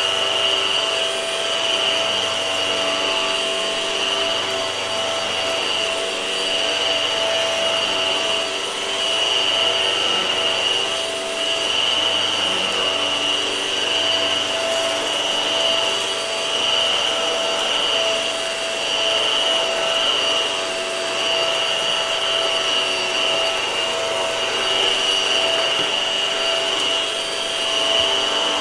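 Hart vacuum cleaner running steadily, a motor whine with a few fixed high tones over airflow noise, its loudness swelling and easing a little.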